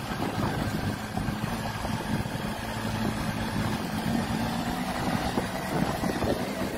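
Motorcycle engine running at steady low revs, with wind noise on the microphone.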